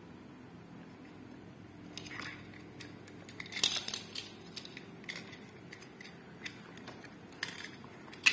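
Hard plastic toys being handled: scattered clicks and clacks as a toy excavator arm and small toy train figures are gripped and knocked together, with a brief cluster of louder clacks about three and a half seconds in.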